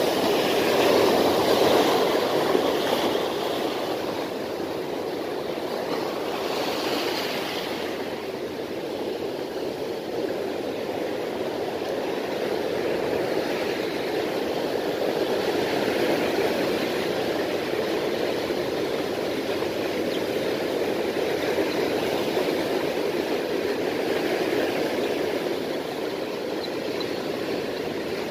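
Sea surf washing in over sand and around rocks as a steady rush, with louder surges of breaking waves in the first few seconds and again about seven seconds in.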